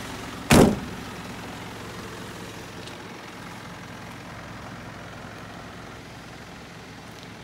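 A Nissan Civilian minibus door slammed shut once: a single short, loud thump about half a second in, over steady background noise.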